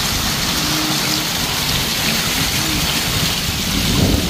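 Steady rushing noise of falling water, with faint voices murmuring in the background and a low rumble near the end.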